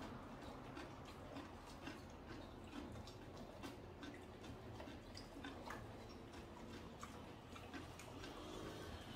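Faint, irregular clicks and taps of eating: chopsticks working at pork bones in a bowl of stew, over a low steady hum.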